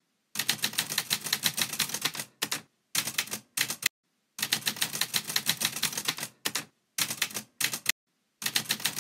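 Manual typewriter typing: quick runs of key strikes, the typebars snapping against the paper several times a second, broken by short pauses between words.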